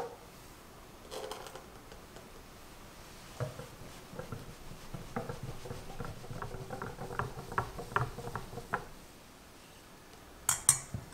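A whisk beating a thin egg-yolk and oil batter in a glass bowl, ticking lightly and irregularly against the glass for several seconds. Near the end, two sharp clinks as a metal mesh sieve is set against the bowl.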